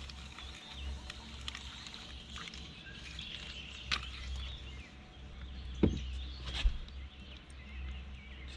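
Outdoor ambience with birds chirping faintly over a steady low rumble. A few sharp knocks come about four, six and nearly seven seconds in.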